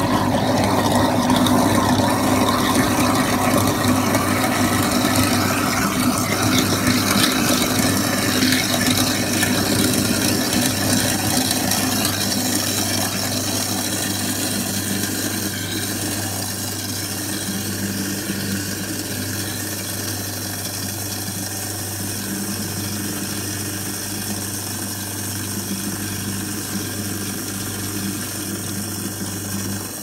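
InSinkErator model 66 garbage disposal running with a steady motor hum. Over the first several seconds it grinds apple peels, loud and rough, with tap water running into it. It then settles to an even run and cuts off at the end.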